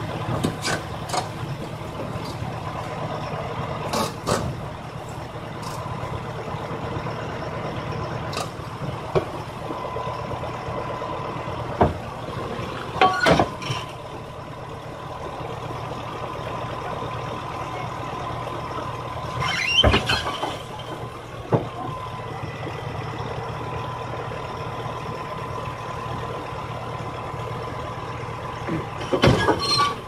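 Heavy diesel engine running steadily at idle, with a few short knocks and clatters now and then.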